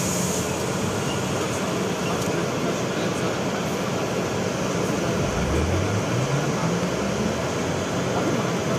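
Cabin of a BKM 32100D trolleybus: a steady ventilation hum while it stands at a stop, then, about five seconds in, the traction motor whine starting low and rising steadily in pitch as the trolleybus pulls away.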